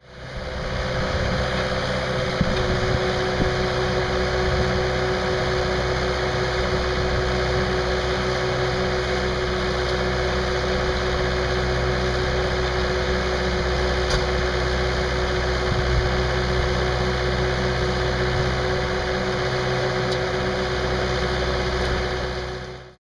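Engine of an earth-drilling auger rig running steadily while it bores foundation holes in the ground, with a constant whine over a low rumble.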